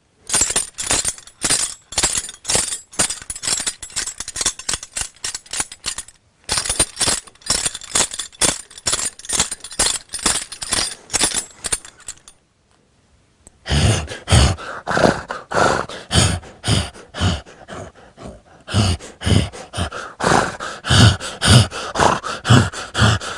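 Foley sound effects: a fast run of sharp hits, about four or five a second, then a pause of a second or so about twelve seconds in. After the pause come heavier, deeper hits, about two a second.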